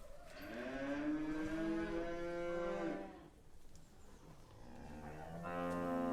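Cow mooing twice: one long moo of nearly three seconds, then a second moo that swells and grows loudest near the end.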